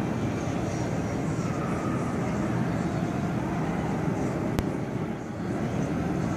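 Steady background din of a large enclosed hotel atrium heard from high above, a dense low rumble without distinct voices. A single sharp click about four and a half seconds in.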